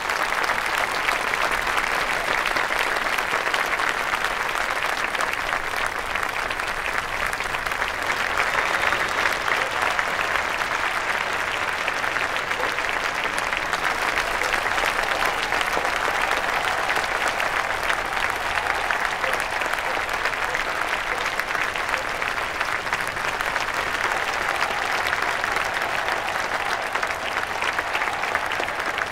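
Large audience applauding: dense, steady clapping from many hands that swells in at the start and carries on without a break.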